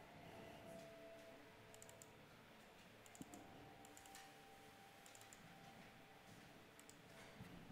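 Near silence with a few faint, scattered computer mouse clicks over a faint steady hum.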